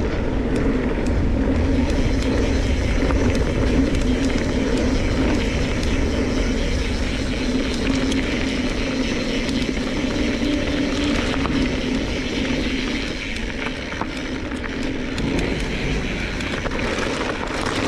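Mountain bike rolling down a dirt and gravel trail: steady tyre noise over a low rumble, with scattered small clicks and rattles.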